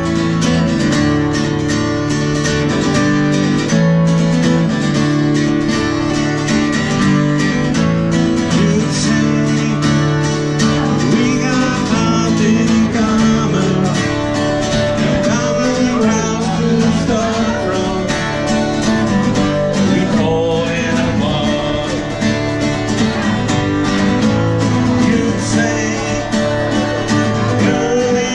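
Live acoustic guitar music, plucked-string playing in a country or bluegrass style.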